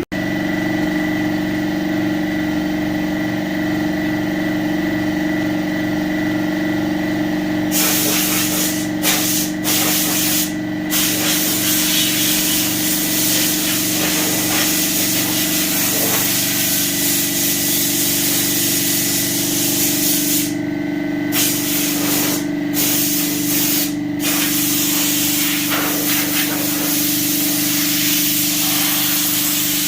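Compressed-air blow gun hissing as it blows sanding dust off a car body, starting about eight seconds in and breaking off briefly a few times, over the steady hum of an air compressor running.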